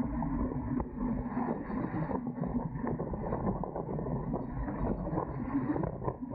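Wind and water rush aboard a Dart 18 catamaran under sail, with frequent small knocks and rattles from the boat. A low steady hum fades out about two seconds in.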